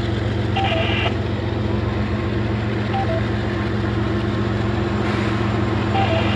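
Diesel locomotive engine running with a steady low drone as a freight train approaches.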